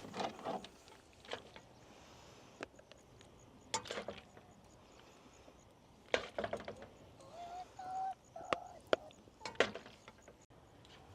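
Camp cookware and utensils being handled: scattered knocks and clinks in several short clusters, with a few brief squeaky tones about eight seconds in.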